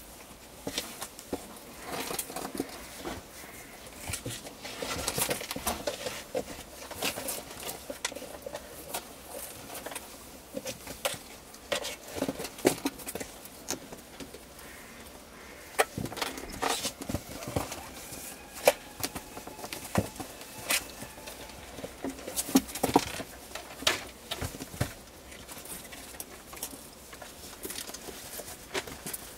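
Kittens scampering and wrestling in and around a cardboard box: irregular scratching, scuffling and light pattering of paws and claws on cardboard and floor, with sharp scrapes scattered throughout.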